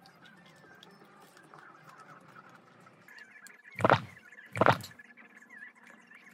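Two loud gulps of iced coffee drunk through a plastic straw, close to the microphone, under a second apart.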